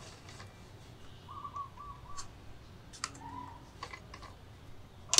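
Minsk 125 motorcycle gearbox turned by hand on the bench: a few faint metallic clicks from its gears and shift parts, with a sharper click near the end.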